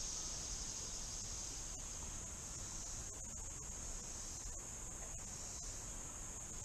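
Steady, high-pitched drone of a summer insect chorus, holding one pitch throughout, over a faint low outdoor hiss.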